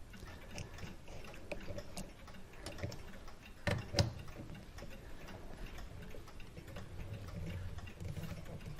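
Small, irregular metallic clicks from a Hermle clock movement as its mainsprings are let down, the ratchet click catching as each spring unwinds; two louder clicks come just before the middle.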